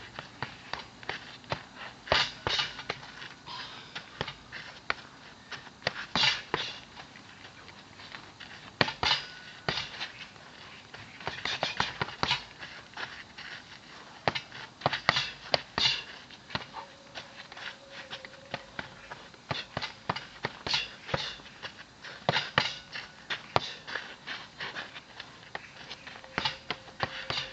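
Punches landing on a hanging heavy bag: sharp hits in quick flurries of a few blows, with pauses of a few seconds between flurries.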